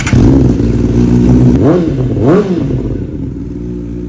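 Kawasaki ZX-10R's inline-four engine idling, revved twice in quick succession about two seconds in, each rev rising and falling back, then settling to a steady idle.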